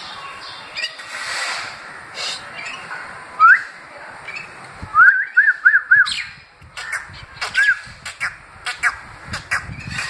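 Common mynas calling during a fight: a single rising note, then a quick run of four arched whistled notes about five seconds in, another such note near eight seconds, and scattered sharp clicks toward the end.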